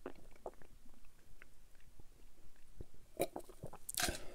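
Close-miked mouth and swallowing sounds of a person drinking from a glass: faint small wet clicks at first, then two louder, sharper sounds about three and four seconds in, as the drink is finished and the glass lowered.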